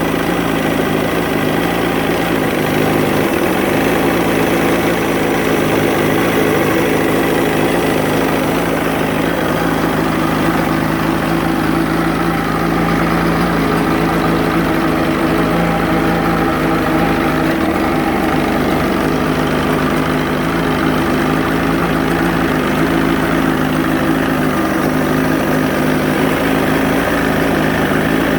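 1980 Johnson 115 hp V4 two-stroke outboard motor idling steadily. The owner says this engine has a cough/sneeze problem.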